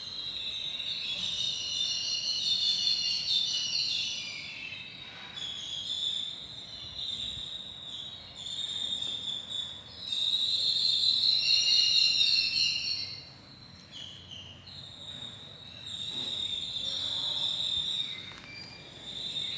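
Dense high-pitched chirping that swells and fades in waves every few seconds.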